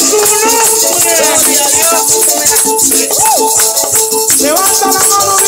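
Group singing a Spanish-language Christian praise song, with maracas and a tambourine shaking steadily along.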